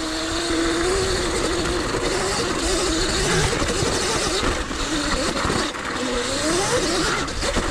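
Sur Ron Light Bee electric dirt bike's motor whining on the move, its pitch wavering and rising again near the end as the throttle opens. Under it runs a steady rush of wind and tyre noise on dirt and rock.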